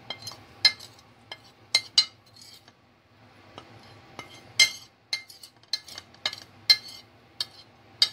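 Sharp, irregular clicks and light knocks as small containers of ground spice are tipped and tapped against the rim of a plastic mixing bowl, about a dozen in all.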